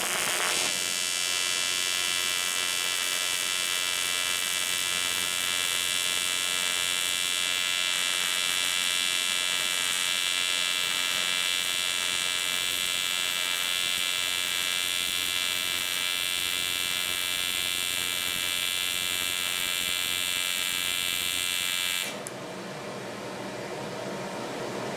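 AC TIG welding arc on 7075 aluminum, buzzing steadily as a bead is run along a T-joint with filler rod fed in by hand. The buzz cuts off sharply about 22 seconds in when the arc is broken.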